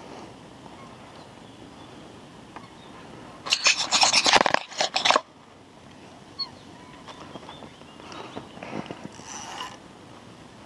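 Carp fishing reel's drag clicking rapidly as a hooked fish pulls line off, in one burst of under two seconds about three and a half seconds in.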